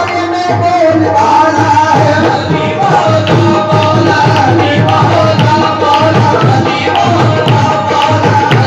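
Qawwali music in an instrumental passage: a tabla beat under a steady melody line.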